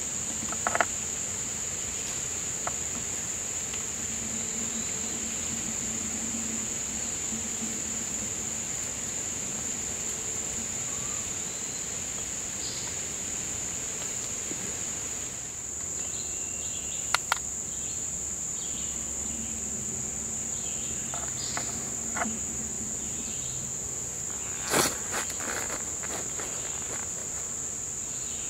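Steady high-pitched drone of an insect chorus in summer woodland, with a few brief sharp clicks, about a second in, near the middle and near the end.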